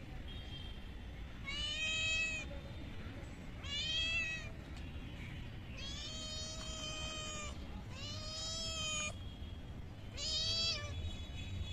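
Black-and-white kitten meowing five times, each call about a second long and about two seconds apart. These are a hungry kitten's begging meows for the raw fish held just out of reach.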